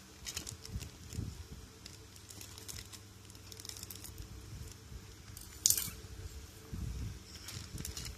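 Scissors cutting through a thin clear plastic bag and the plastic crinkling as it is handled, with one brief, sharper and louder crackle about five and a half seconds in.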